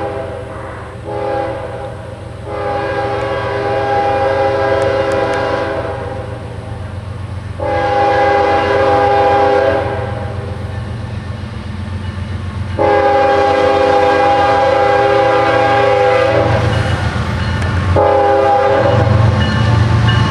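Horn of a CSX GE ES44AC diesel locomotive sounding a series of long blasts with short breaks, one short blast about a second in, as it approaches a grade crossing. Beneath it runs the locomotive's diesel engine and the rumble of the train, growing louder near the end as it comes closer.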